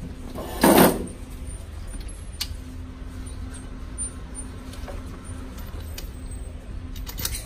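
A single loud gunshot about a second in, with a short echo. A faint steady hum follows, and a few light clicks come near the end.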